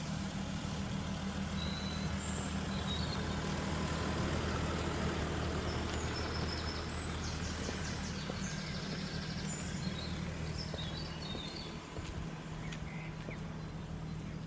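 Audi A8 engine idling steadily with a low, even hum.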